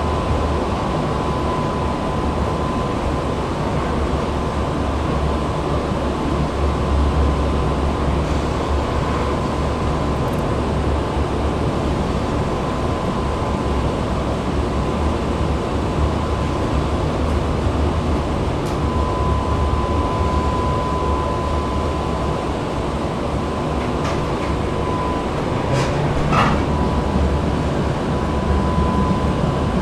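Prague tram running along its line, heard from on board: a steady rumble of wheels on rails with a thin, steady high whine over it, and a few short clicks in the last few seconds.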